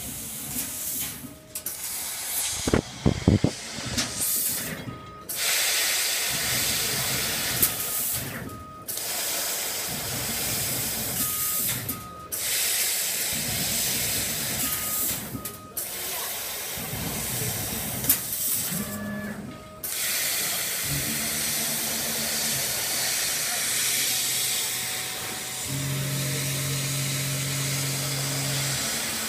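Laser cutting machine cutting sheet metal: a steady hiss of assist gas from the cutting head, which stops for a moment about every three to four seconds between cuts. In the last third a low hum joins it.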